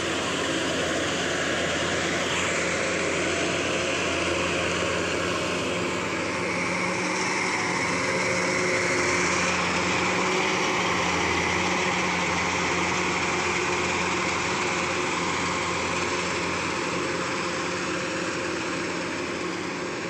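Kubota DC-105X rice combine harvester working through the crop, its diesel engine and threshing machinery making a steady mechanical drone. It is loudest around the middle, as the machine passes close, and eases off a little as it moves away.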